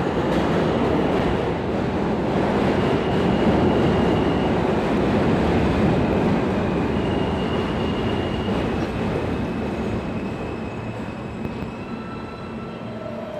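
R160B subway train with Alstom propulsion pulling into an elevated station: a loud, steady rumble of wheels on rail that fades over the last few seconds as the train slows. Thin high squeals sound twice along the way.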